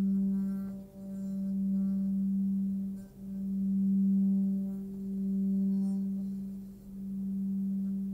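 Forged Nepalese singing bowl, 18.5 cm, pitched at G around 194 Hz, kept sounding by a felt-covered mallet circled around its rim. The deep hum swells and fades in a slow wobble about every two seconds.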